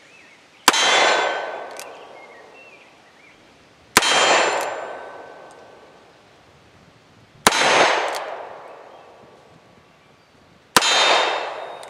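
Four slow, evenly spaced shots from an early 20th century Colt Bisley single action revolver in .38 Special, about three and a half seconds apart. Each shot is followed by a short metallic ring from the steel target being hit.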